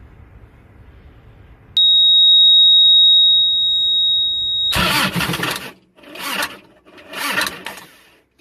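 Start attempt on a trailer reefer unit: a steady high-pitched beep lasting about three seconds, then three short, rough bursts as the diesel is cranked without catching, on a battery that is running low.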